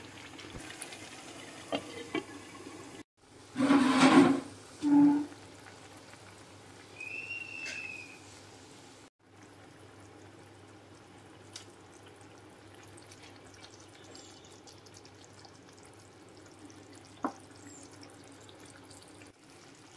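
Milk-based paneer bhurji gravy simmering and bubbling softly in a frying pan, with two brief louder noises about four and five seconds in.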